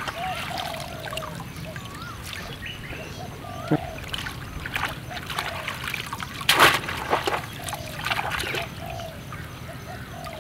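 Shallow muddy paddy water splashing and trickling as hands grope through it and the mud for crabs, with the loudest splash about six and a half seconds in. Short chirping calls go on in the background.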